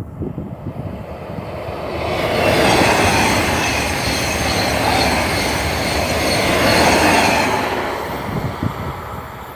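A train passing by: its rolling noise swells about two seconds in, stays loud for several seconds and fades near the end. Wind buffets the microphone at the start and end.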